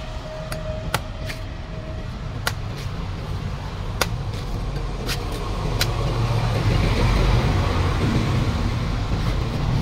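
Meat cleaver chopping and slicing into the husk of a golden coconut on a wooden stump: a series of sharp knocks at irregular intervals. Underneath is a steady low rumble that swells about six to eight seconds in.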